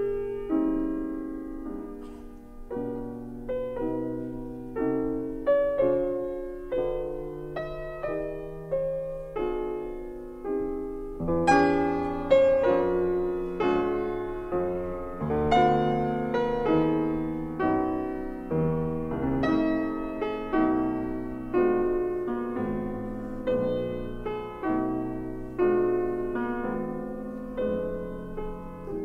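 Background piano music: single notes and chords that strike and fade one after another, growing louder about eleven seconds in.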